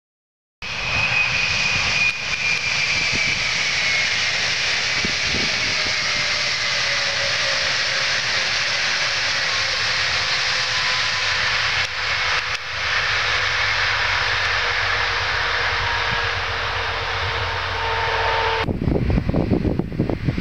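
Stadler Flirt electric multiple unit running close by: a steady rush of wheels on rail with a motor whine that slowly falls in pitch. About eighteen seconds in it gives way abruptly to wind buffeting the microphone.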